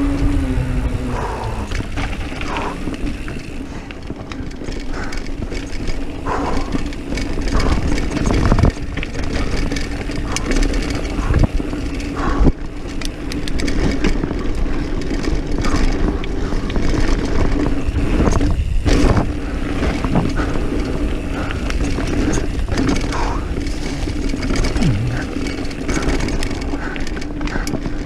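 Diamondback Mission 1 mountain bike descending dirt singletrack at speed: wind rushing over the camera microphone, tyres rolling on dirt, and the bike rattling with scattered knocks over bumps. A steady hum runs underneath.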